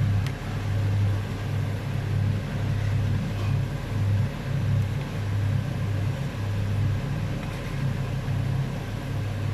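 A steady low rumble that pulses irregularly and is the loudest thing, over a fainter even hiss of vegetables and meat frying in plenty of oil.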